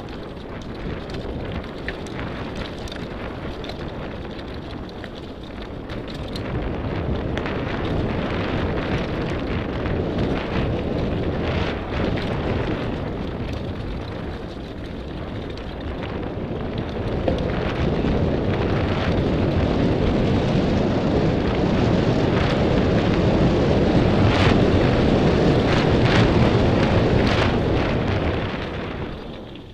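Wind buffeting the microphone over the rumble of a Merida AM400 mountain bike's tyres running fast over dirt and gravel, with frequent clicks and rattles from the bike and stones. It grows louder in the second half and dies away near the end as the bike slows.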